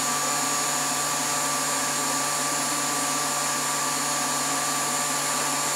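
Vacuum pump running steadily with a constant hum and whine, drawing down the vacuum bag over a resin-infusion layup toward about 10 millibar.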